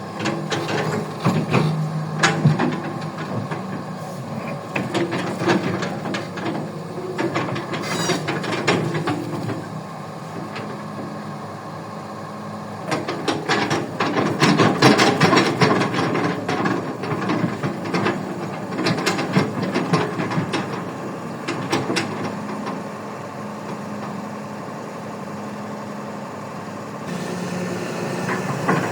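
Kobelco excavator running steadily while digging, with repeated clanks and scraping of the bucket and soil, thickest in the middle stretch.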